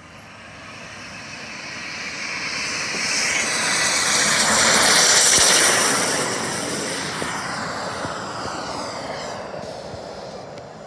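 Kingtech K-260 model jet turbine of a large RC Havoc at high power on its take-off run: a high whine and jet rush that swell to a peak as it passes about five seconds in, then fade and drop in pitch as it lifts off and climbs away.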